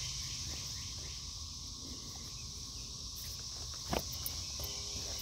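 Steady high-pitched insect chirring outdoors, with a single sharp knock about four seconds in.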